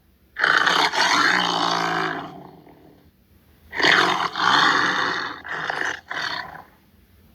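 Tiger roaring: two long roars, the first trailing off, then two short ones in quick succession.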